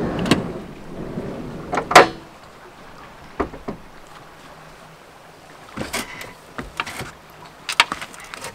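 Sliding side door of an Adria Twin camper van rolling open and knocking into its open stop about two seconds in, followed by scattered light clicks and knocks as someone steps out through the doorway.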